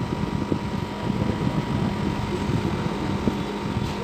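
Steady low background rumble with a faint steady hum, and a few faint ticks.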